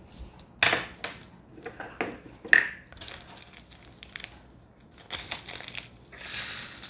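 Crinkling of a small plastic bag of diamond-painting drills being handled and opened, with scattered clicks and a denser rattle near the end as the small resin drills are poured into a plastic container.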